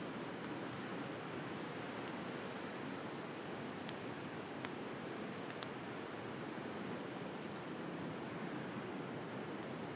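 A steady wash of sea waves, with a few sharp pops from a crackling wood bonfire.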